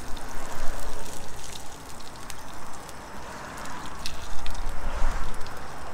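Hot peanut oil sizzling in a small frying pan on a portable camp stove: a steady crackling hiss with a few light clicks and a low rumble underneath.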